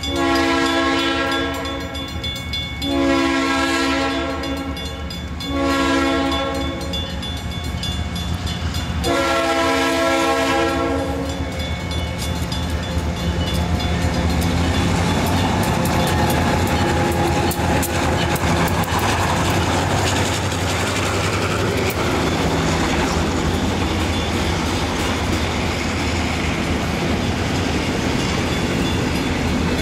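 Horn of an Elgin Joliet & Eastern SD38-2 diesel locomotive sounding the grade-crossing signal: long, long, short, long, ending about eleven seconds in. The locomotive's diesel then rumbles past, and freight cars roll by with wheels clicking steadily over the rail joints.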